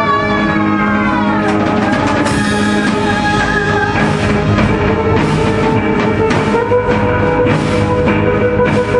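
Instrumental music: held notes with a falling glide, then drums and repeated crashes coming in about two seconds in.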